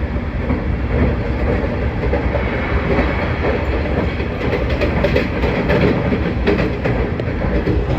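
Running noise of a moving train heard from inside the passenger car: a steady low rumble of wheels on rails, with faint clicks of the wheels over the rail joints.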